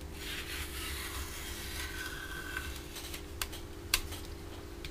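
Masking being peeled and rubbed off a plastic model aircraft fuselage, a rasping rub for about three seconds, then two sharp plastic clicks, the second louder.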